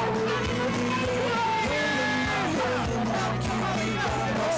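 A song with a singing voice over a steady backing, laid over the footage as a soundtrack.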